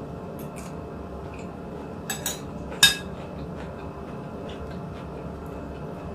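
A few sharp clinks and taps of dishes during a meal, the loudest just under three seconds in, over a steady low background hum.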